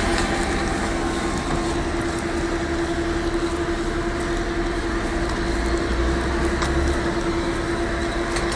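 Steady road traffic noise with a constant hum throughout.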